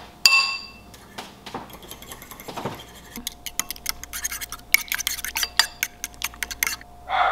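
A fork beating eggs in a bowl: quick, regular clicks of the fork against the bowl, about six a second, growing dense from about three seconds in. It opens with a single ringing clink.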